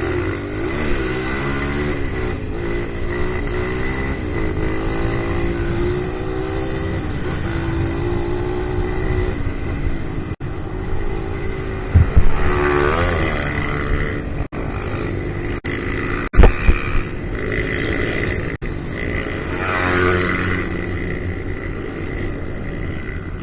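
A 230 cc four-stroke single-cylinder trail motorcycle engine revs hard as the bike climbs a steep dirt hill, its pitch rising and falling with the throttle. A few sharp, loud knocks come about halfway through.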